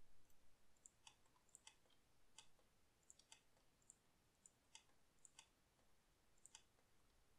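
Faint, irregular clicks of a computer mouse and keyboard, some in quick pairs, as vertices are selected and moved in a 3D modelling program.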